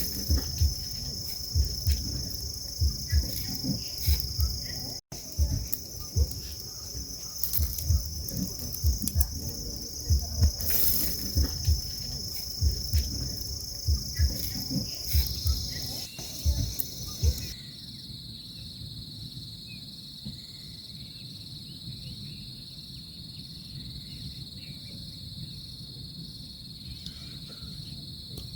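Steady high-pitched insect chorus, a continuous trill. Over the first half it is mixed with irregular low thumps and knocks. About seventeen seconds in, the chorus drops to a lower, pulsing trill and the thumps stop.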